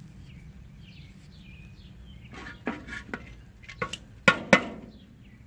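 A small Firefly ferro rod scraped hard against a striker in a series of about six quick strokes, the last two loudest, as it is struck for sparks onto tinder. Small birds chirp in the first half.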